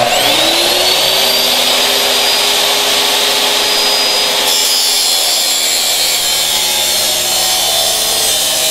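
Miter saw with an abrasive cut-off wheel spinning up with a quickly rising whine, then running steadily and grinding through stainless steel exhaust pipe, the sound turning rougher about halfway through as the wheel bites into the metal.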